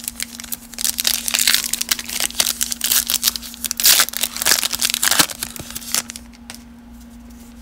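Foil trading-card pack wrapper crinkling and tearing as it is opened by hand: a dense run of sharp crackles that stops about six seconds in.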